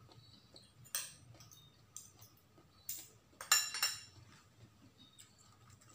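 Metal spoon and fork clinking against ceramic bowls while eating: a few sharp, separate clinks, the loudest pair a little past the middle.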